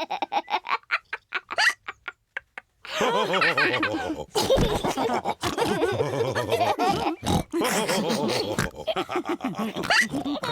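Cartoon pigs laughing and snorting together, several voices at once. A first run of laughter thins out and stops, and after a short pause the group breaks into a longer bout of snorting laughter.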